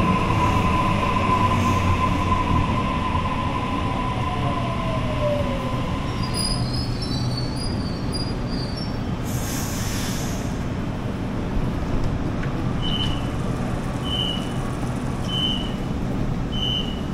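Sydney Trains double-deck electric train pulling in and stopping: a steady high squeal and a whine falling in pitch as it slows. About ten seconds in there is a short burst of air hiss. From about thirteen seconds, short beeps repeat roughly every second and a bit as the doors open.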